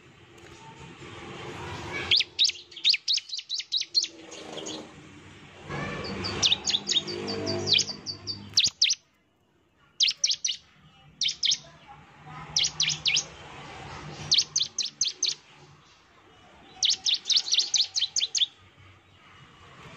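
Bar-winged prinia (ciblek) singing in repeated bouts of rapid, sharp, high-pitched chirps, each bout lasting a second or two with short pauses between.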